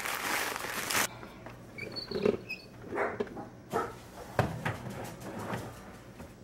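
Plastic freezer bag of frozen smoothie ingredients crinkling for about a second, then scattered light knocks and rustles of handling on a kitchen counter, with a few faint high squeaks about two seconds in.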